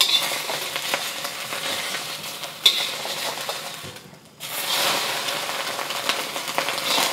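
Beaten egg frying in a thin layer of hot oil in a wok, sizzling steadily as it is turned. A utensil gives one sharp knock against the wok a little over two and a half seconds in, and the sizzle breaks off briefly just past halfway before it resumes.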